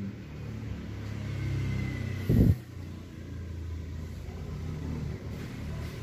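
A steady low engine rumble, like a motor vehicle running nearby, with one brief louder sound about two seconds in.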